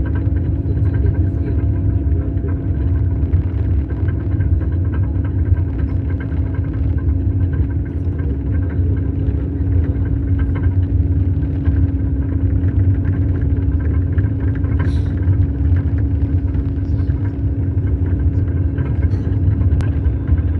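Snow crawler (tracked snowcat tour vehicle) running steadily, heard from inside the cabin: a loud low rumble from the engine and tracks with a constant hum over it.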